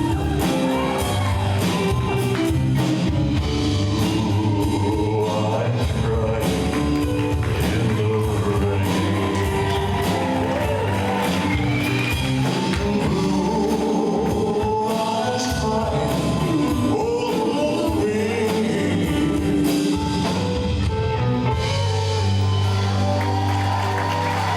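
Live band accompanying a male singer, with steady bass and drums under the sung melody.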